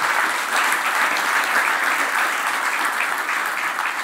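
Audience applauding steadily at the end of a talk, a dense wash of clapping in a large room.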